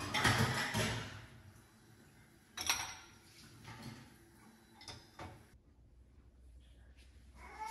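Dishes being washed and handled at a kitchen sink: a rush of noise in the first second, then several separate clinks and knocks of dishes.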